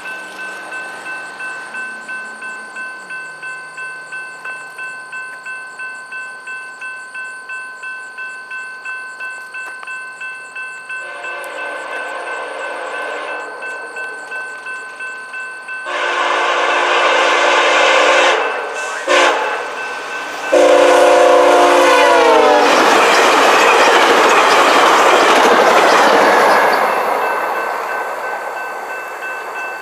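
Level-crossing warning bells ringing about twice a second while an approaching locomotive sounds its multi-tone horn in the long, long, short, long grade-crossing pattern. The last long blast drops in pitch as the locomotive reaches the crossing, followed by a loud rush of the train passing for a few seconds, then the bells ring on alone.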